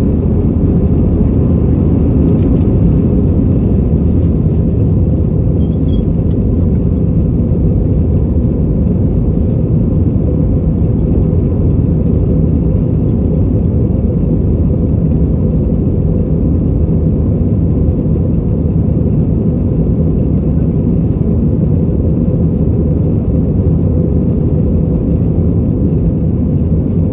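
Steady low rumble of a running vehicle, with a faint hum and no change in level.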